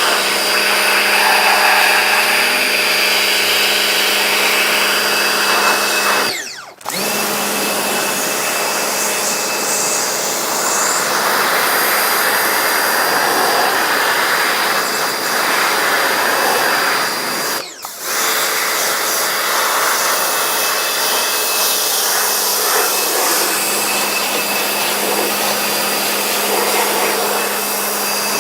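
The electric motor of a cleaning tool running steadily with a constant hum. It cuts out sharply for a moment about a third of the way in and again past the middle.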